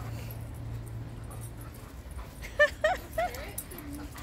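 Dogs at play: a quick cluster of short, high yips and whines a little past halfway, followed by a lower drawn-out whine.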